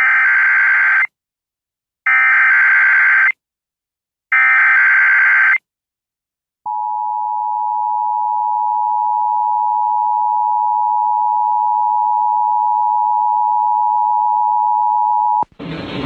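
Emergency Alert System SAME header: three identical buzzing data bursts of about a second each, a second apart. About six and a half seconds in, the EAS two-tone attention signal (853 and 960 Hz sounded together) starts and holds steady for about nine seconds, then cuts off near the end. Together they announce the start of an EAS tsunami warning.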